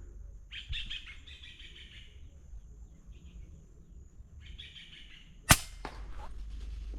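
Birds calling in short chattering bursts, then a single sharp shot from a .22 FX Impact PCP air rifle about five and a half seconds in, followed a moment later by a fainter knock. The shot hits a wild guinea fowl.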